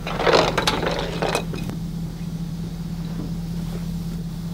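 Clattering and rustling handling noise for about the first second and a half, over the steady low hum of an idling vehicle engine.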